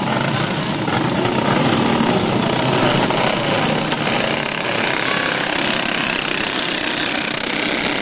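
Engines of a pack of racing go-karts running at speed together, a steady dense buzz.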